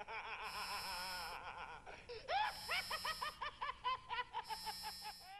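A high, cackling villain laugh in quick repeated bursts, trailing off near the end, over a faint hiss that pulses about every two seconds.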